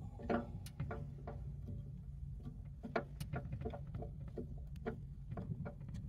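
Hand screwdriver turning screws into a steel safe door: irregular small clicks and scrapes of metal, over a steady low hum.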